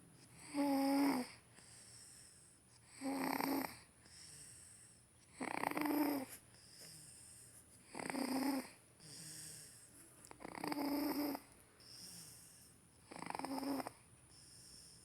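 A sleeping baby snoring: six loud snores at an even pace about two and a half seconds apart, each lasting under a second, with softer breaths between.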